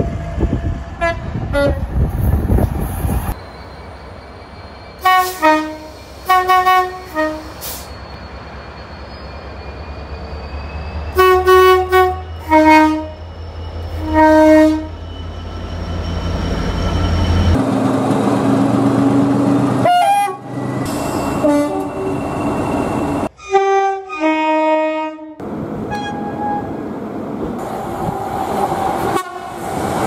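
Train horns sounded in several groups of short blasts, alternating high and low notes, from passing British trains including Class 66 diesel freight locomotives. Between the horn groups runs the low rumble of a diesel engine, rising before the locomotive's horn sounds.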